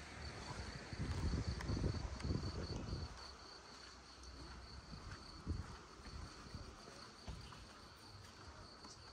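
Insects, cricket-like, chirring steadily in a high, slightly pulsing tone. A low rumble is louder from about one to three seconds in, and there is a single soft thump around the middle.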